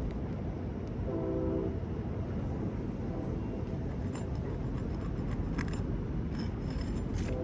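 Scattered clicks and scrapes of a shingle nail-removal tool working under an asphalt shingle, over a steady low rumble. A brief flat horn-like tone sounds about a second in.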